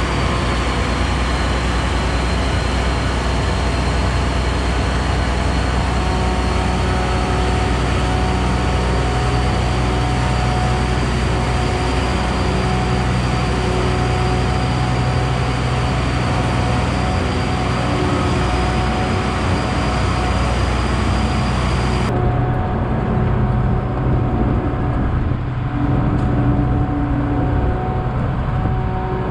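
Case IH 1660 combine's diesel engine running steadily, with a thin high whine over it that stops abruptly about 22 seconds in, leaving a duller engine drone.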